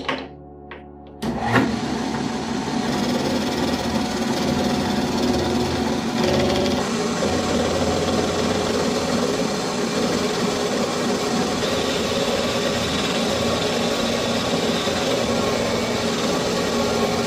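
A few sharp metallic clicks as the bolt is set in the lathe chuck, then about a second in the metal lathe starts and runs steadily while its cutting tool turns the threads off a rusty steel bolt.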